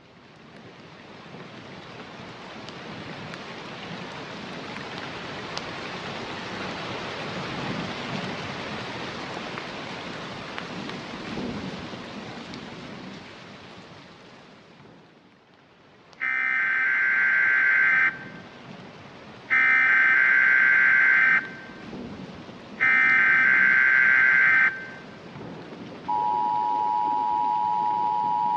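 Rain with rumbles of thunder, swelling and then fading out over about fifteen seconds. Then the Emergency Alert System SAME header plays: three two-second bursts of warbling digital data tones, followed about 26 seconds in by the steady EAS two-tone attention signal.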